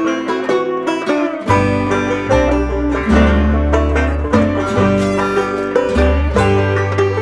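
Gentle instrumental background music with plucked strings; a deep bass line comes in about a second and a half in.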